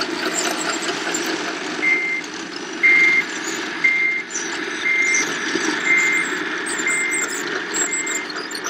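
Reversing beeper of an RC scale Liebherr 634 crawler loader, a single high beep about once a second starting about two seconds in, over the steady running noise of the model's drive.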